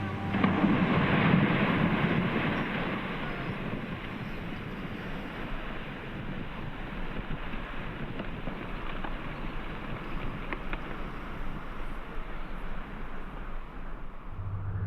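Ice breaking off the front of the Perito Moreno Glacier and crashing into the water, a rumbling rush loudest in the first two seconds or so, then easing into a steady wash of churning water and wind.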